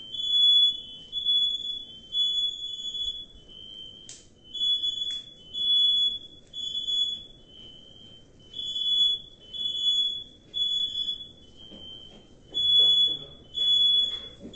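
Smoke alarm going off in its fire pattern: three loud, high beeps, a short gap filled by a slightly lower tone, then three beeps again, repeating about every four seconds. It is set off by the smoke from a stovetop fire.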